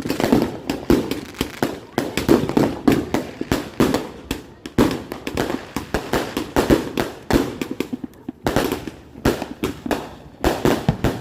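Consumer fireworks going off in a rapid, continuous string of sharp bangs and crackles, several a second, with no break.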